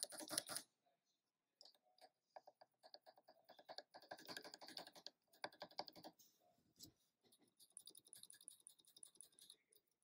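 Gateron Black linear mechanical keyboard switches under keycaps, some lubed and some unlubed, pressed over and over in quick runs of soft clacks as the keys bottom out and spring back. The runs come in clusters with short pauses, loudest in the first half second.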